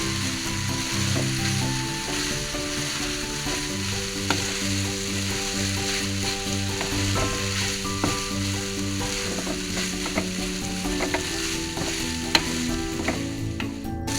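Rice frying in hot oil with squid-ink stir fry in a pan, sizzling steadily as it is stirred, with a few sharp clicks of the spatula against the pan.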